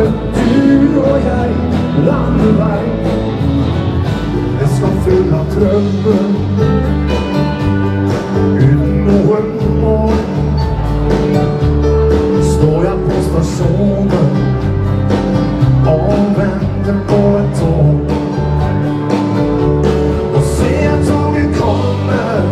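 Live dance-band music played through a PA: drums keeping a steady beat under bass, guitar and keyboard, with a male lead vocal.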